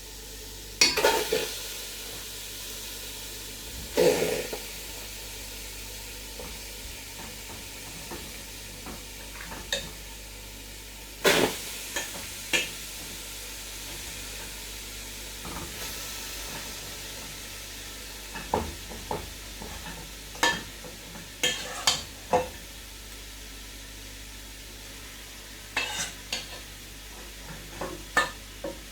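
Marinated chicken drumsticks sizzling steadily in a dry Saladmaster pan with no oil, broken by a dozen or so sharp clanks of a utensil against the pan.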